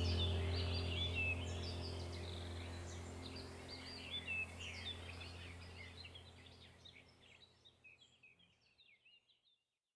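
Many small birds chirping and twittering over a steady low hum, the whole sound fading out gradually until it stops near the end.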